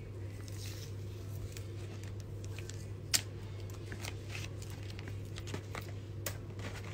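Faint crackling and clicking handling noise on a phone microphone over a steady low hum, with one sharp click about three seconds in.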